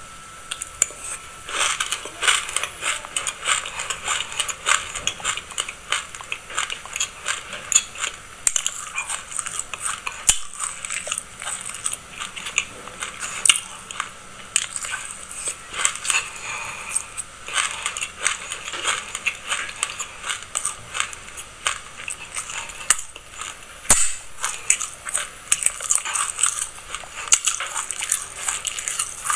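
Close-miked chewing of a mouthful of dry black sesame seeds: a dense, steady crackle of many fine crunches.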